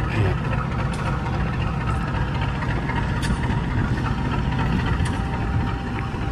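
CC 201 diesel-electric locomotive's engine running steadily at a low rumble, with a few faint sharp clicks about a second apart.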